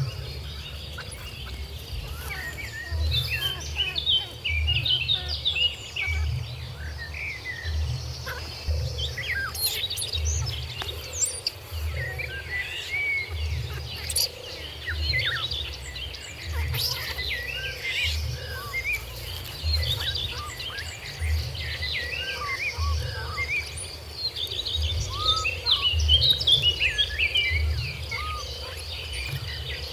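Many birds chirping in short, quick calls throughout, over a steady high insect hum, with a low rumble pulsing roughly once a second underneath.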